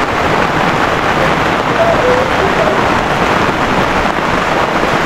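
Steady rain falling, a dense, even patter with no let-up.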